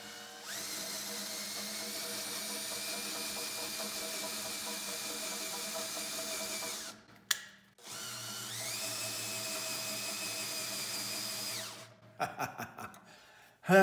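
Cordless 18 V drill spinning a 3/8-drive socket on a sprocket, driving a chain-and-sprocket mechanism that raises or lowers the bed of a Hammer A3-41 jointer-planer. The drill runs twice for several seconds each, with a short stop and a click between the runs. Each run rises in pitch as the drill comes up to speed.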